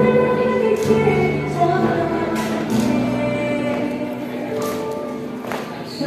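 Music with singing voices, a choir-like vocal backing over sustained chords, with a few sharp percussive accents.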